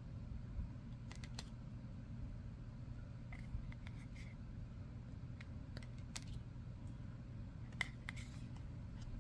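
Thick hexagonal tarot cards being handled and laid down one at a time: soft slides and a few short clicks of card stock, about a second in, around three to four seconds, near six seconds and near eight seconds, over a steady low hum.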